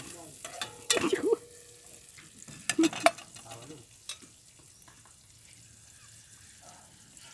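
Sliced garlic frying in oil in a metal pot, a faint sizzle, while a metal spatula stirs it, scraping and clinking against the pot; a few sharp clinks about one and three seconds in.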